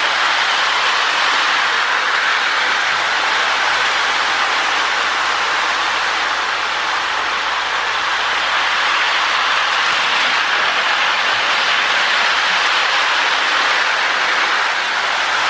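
Lionel 1666 O-gauge model steam locomotive running on its track with a train of tinplate cars: a steady whirring rush of motor and wheels on the rails. It eases slightly about halfway through.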